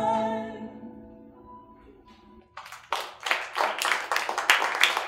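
The last sung note and acoustic guitar chord of a folk song ring out and fade away over about two and a half seconds; then an audience starts clapping.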